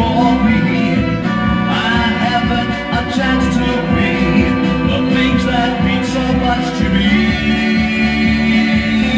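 A psych garage rock 45 playing on a turntable: a vocalist singing over a full band with guitar.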